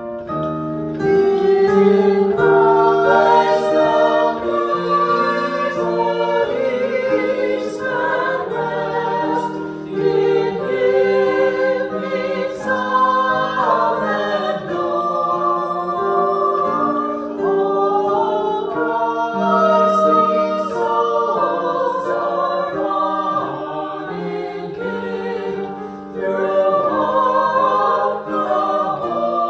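A small mixed vocal ensemble of four women and two men singing in harmony, with sustained notes in several parts.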